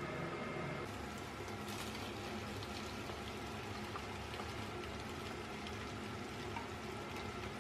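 Beef and sliced vegetables sizzling in a hot frying pan, a steady hiss with many fine crackles that thicken about a second and a half in.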